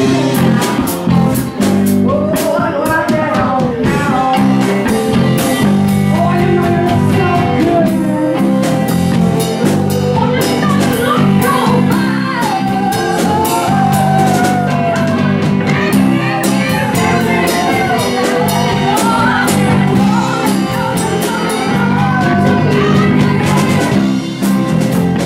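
Loud live band: a woman's lead vocal over electric guitar, bass guitar and a drum kit with busy cymbals.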